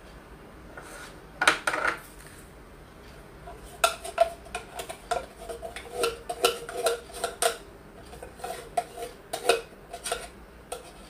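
Tin can of condensed milk clinking and knocking against a wire whisk in a mixing bowl as the milk is poured out. A short cluster of knocks comes about a second and a half in, then a run of quick, irregular metallic clinks until near the end.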